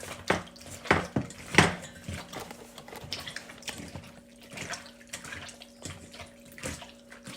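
Seasonings being mixed into raw steak in a bowl: wet squishing with several sharp clinks and knocks against the bowl in the first two seconds, then softer scattered ones. A steady low hum runs underneath.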